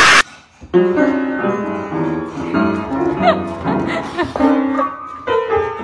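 A loud rushing noise that cuts off sharply, then a run of piano-like notes, several sounding together, with a few sliding tones among them.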